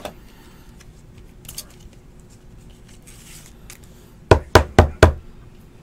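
A stack of trading cards is rapped on the tabletop four times in quick succession, about a quarter second apart, to square it up: four sharp, loud knocks near the end. Before that there is faint rustling of cards being handled.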